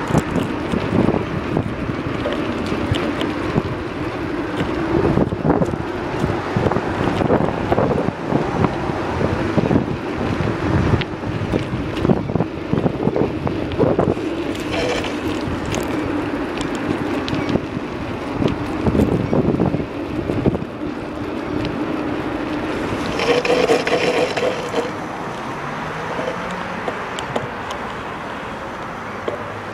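Wind buffeting a handheld phone's microphone while riding a bicycle, with frequent knocks and rattles throughout. A brighter rush comes about three-quarters of the way through.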